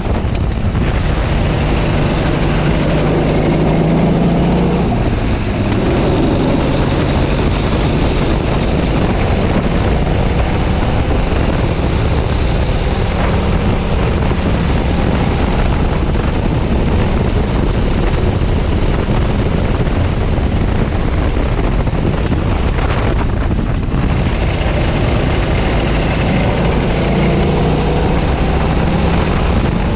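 Racing kart engine heard from onboard at race pace, its pitch rising and falling as the kart accelerates and slows through the corners, with wind noise on the microphone.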